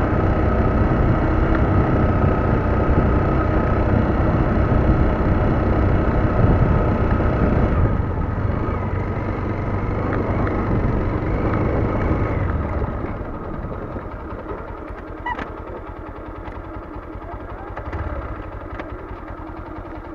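Lifan KPT motorcycle engine running on the move, with steady road and wind noise; about two-thirds of the way through it eases off and runs on noticeably quieter.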